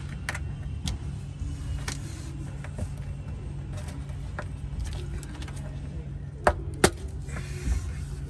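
Corrugated plastic wiring loom being handled against a vehicle's underbody: scattered small clicks and rubs, with two sharp clicks about six and a half seconds in, over a steady low hum.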